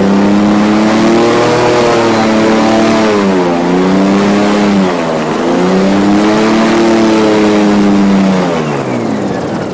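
Airboat engine and propeller running at speed. The pitch dips twice as the throttle is eased and reopened, about three and a half and five seconds in, then falls steadily near the end as the throttle comes off and the boat slows.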